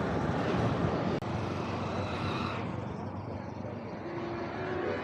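Road traffic noise heard while riding: a steady rumble and hiss, with a sharp click about a second in. The hiss thins after the middle, and a faint steady tone comes in near the end.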